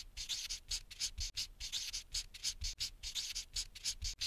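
Quick scratching strokes, several a second in an uneven rhythm, like a pen writing on a surface.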